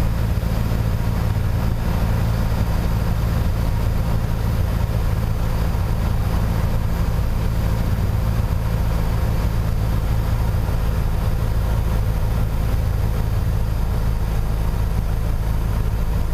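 Piper PA-28 Warrior III's four-cylinder Lycoming engine and propeller running steadily in descent, a constant low drone heard inside the cockpit.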